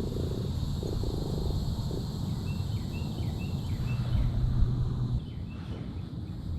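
A bird calling a quick run of about ten short chirps, over steady low rumbling noise.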